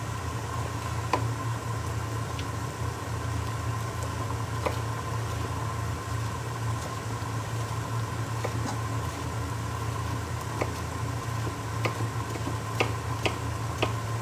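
A kitchen knife slicing a red bell pepper on a wooden cutting board, with sparse, irregular sharp taps of the blade on the board, more frequent near the end. A steady low hum with a faint whine runs underneath.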